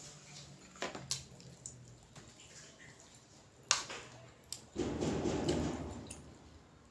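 Metal spoon clinking against a ceramic bowl a few times, the loudest clink about halfway through, then a second or so of soft squishy scraping as food is scooped up.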